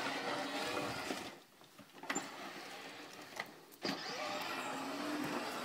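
Battery-powered ride-on toy ATV's small electric motor whining steadily as it drives. It cuts out after a little over a second for about two and a half seconds, with a few clicks, then runs again.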